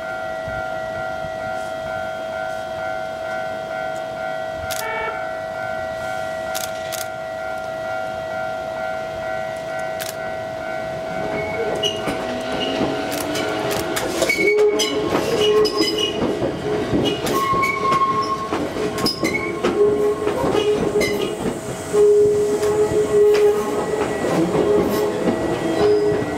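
Shizuoka Railway 1000-series electric train pulling out of the depot at low speed: a steady electrical hum while it stands, then from about halfway a rising motor whine as it moves off. Its wheels clack over the yard's points and rail joints, with intermittent squeals on the curves near the end.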